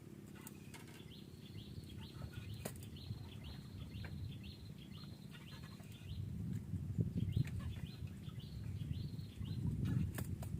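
A bird chirping in quick runs of short, high notes, twice, over a low rumble that grows louder about six seconds in.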